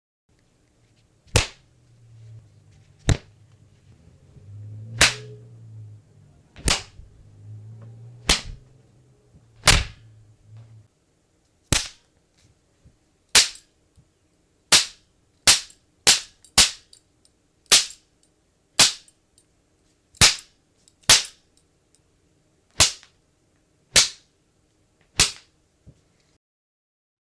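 A run of about nineteen sharp, cracking punch and slap hit sound effects, one every second or so and closer together around the middle. A low hum sits under the first ten seconds.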